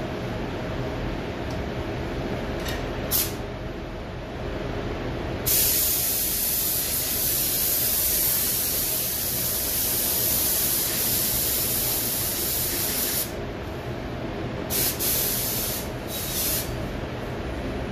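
Air spray gun spraying paint. One long hiss of about eight seconds starts about five seconds in, with short blips of the trigger before it and several after it, over the steady low hum of the paint booth's ventilation.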